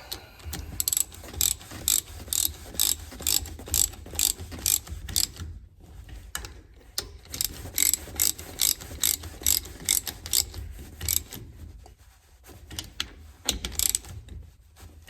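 Hand ratchet clicking in quick, even strokes, about three a second, as the bolts holding a Hurst shifter handle to the shifter are tightened down. There is a short pause about six seconds in, then a second run, and only a few scattered clicks over the last few seconds.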